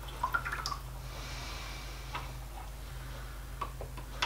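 Faint clicks and light handling noise from a hand-operated hydraulic test pump, with a brief soft hiss about a second in, over a steady low hum.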